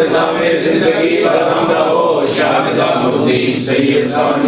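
Male voices chanting an Urdu Sufi devotional litany unaccompanied, a continuous melodic recitation line.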